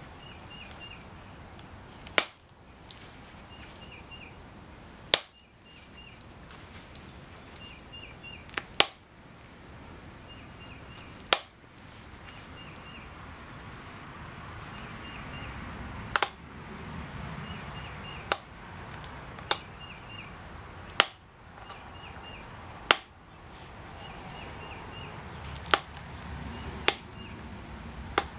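Pressure flaking a Texas tab flint preform with a copper-tipped flaker: sharp snaps as flakes pop off the edge, about a dozen of them, irregularly one every couple of seconds. Between the snaps there is a low rustle of gloves and the leather pad.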